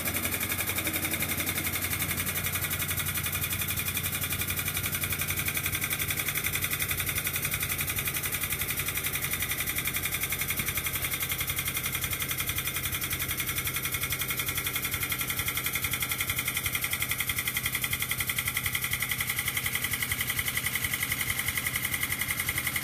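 The air-driven pump of a 12-ton air/hydraulic bottle jack runs with a fast, steady chatter as it pumps hydraulic fluid to raise a motorcycle lift.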